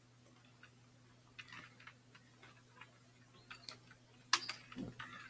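Computer keyboard keys clicking faintly in short irregular runs as text is typed, with a couple of louder key clicks about four seconds in.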